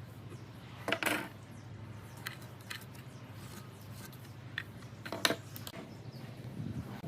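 Scattered sharp clicks and knocks of hand work in a woodworking shop, the loudest about a second in and again past five seconds, over a low steady hum.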